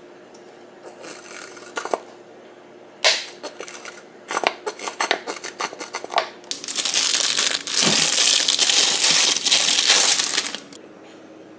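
A nearly empty plastic squeeze bottle of okonomiyaki sauce being squeezed: the plastic crinkles and the last of the sauce spits out with air in short crackly spurts, then in a longer, louder spell of crackling and sputtering from about six and a half to ten and a half seconds in. The bottle is almost out of sauce, so it gives only a few drips.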